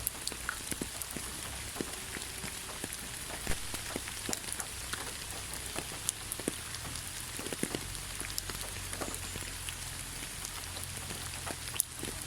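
Steady rain falling, an even hiss with many separate raindrops striking at irregular moments.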